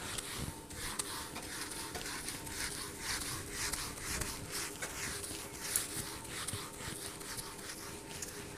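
Quick, irregular scratching and rubbing strokes, with a faint steady hum underneath.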